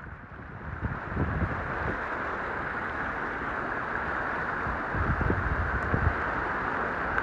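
Steady rushing noise of a vehicle moving along a storm-flooded street in strong wind, with a few low gusts buffeting the microphone.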